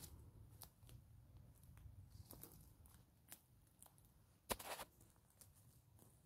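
Footsteps on a spruce forest floor, dry needles and twigs crackling softly underfoot, with one louder crunch about four and a half seconds in.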